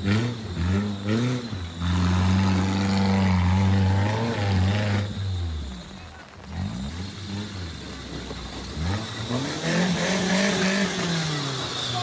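Engine of a modified Maruti Suzuki Gypsy 4x4 off-road vehicle revving hard under load as it climbs over rock. It holds high revs for a few seconds, then rises and falls in pitch again and again as the throttle is worked.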